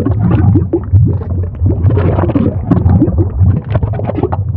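Dense, loud gurgling and bubbling as vinegar is poured onto baking soda and dish soap and the mixture foams up in a baking-soda-and-vinegar volcano.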